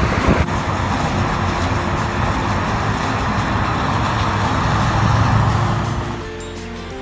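Road vehicle noise, a steady rumbling hiss that swells about five seconds in and then falls away. Music with steady notes takes over near the end.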